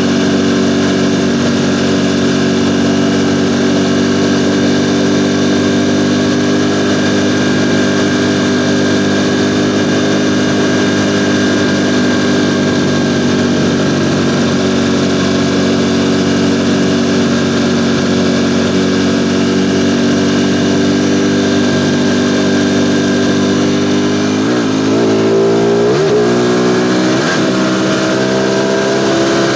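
Ducati Panigale V4 motorcycle engine recorded onboard, running loud and steady at an even engine speed. Near the end its pitch dips and jumps sharply a few times, then settles a little higher.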